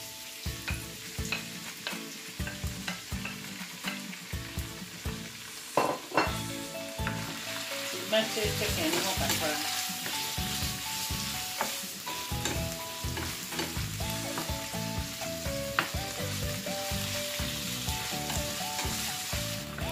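Diced chicken breast and chopped onion sizzling in oil in a nonstick frying pan, with a wooden spatula stirring and knocking against the pan many times. The sizzle grows brighter about eight seconds in.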